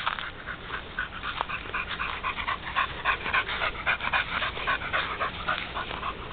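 A pit bull panting hard, in quick, even breaths about four or five a second: the dog is winded from a long bout of jumping at tree limbs.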